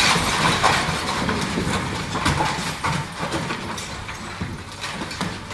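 Masonry, rubble and roof tiles crashing and clattering down as part of an old house is demolished. It is a dense rattle of many knocks, loudest in the first second and thinning out towards the end.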